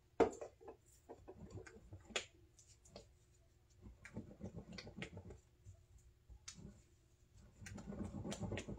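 Waffle batter being mixed in a glass bowl: light clicks and taps of the utensil against the glass, coming thicker near the end, after one sharp click about a quarter second in.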